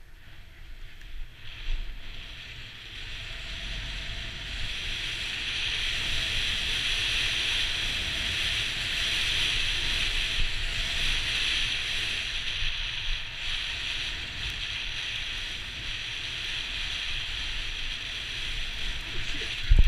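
Snowboard riding through powder snow: a steady hiss of snow spraying under the board, building over the first few seconds, with wind rumbling on the microphone. A sharp knock right at the end.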